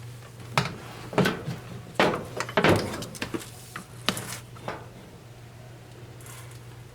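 Several sharp knocks and clunks in quick succession from handling the dryer, over a steady low hum; the knocks stop about five seconds in.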